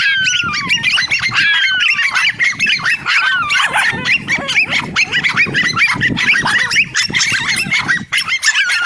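Several dogs barking and yelping over one another, a dense run of high-pitched yaps with a few long falling yelps in the first two seconds.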